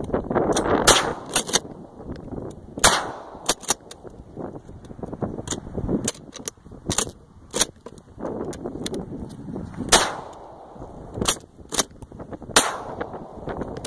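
Repeated shotgun shots fired in irregular succession, some loud and close, others fainter, over a rushing noise.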